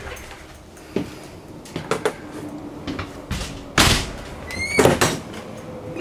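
Doors in a travel trailer being opened and shut: a series of clicks and knocks, the loudest about four seconds in, with a short rising squeak just before five seconds.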